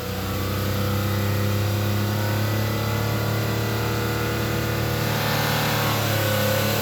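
Honda Accord V6 engine running at raised revs: the level rises a little in the first second, then a steady low hum holds, with a faint whine above it. The owner hears this humming, with a slight gas-pedal vibration, and does not know its cause.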